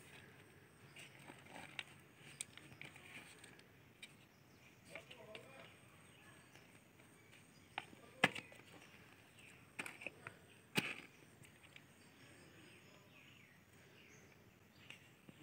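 Hands pressing and patting soil around seedlings in plastic flower pots: faint soil rustling with scattered small clicks, and two sharper clicks about eight and eleven seconds in.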